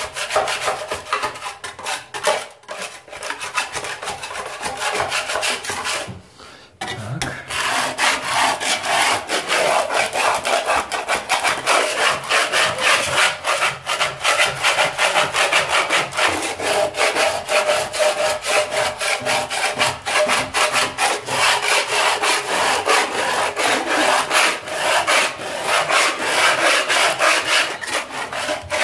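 Steel putty knife scraping old whitewash off a plaster wall in quick repeated strokes, with a short pause about six seconds in.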